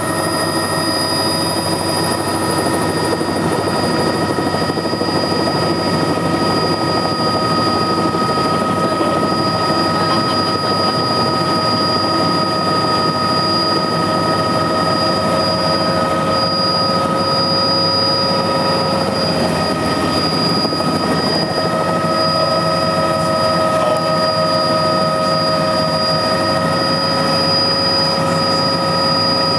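Small helicopter's engine and rotor running steadily, heard from inside the cockpit: a constant mechanical rumble with several steady whining tones over it.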